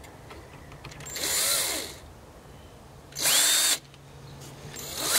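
Cordless drill running in three bursts into a pine board. The first winds up and back down, the second runs briefly at full speed, and the third starts near the end and keeps running.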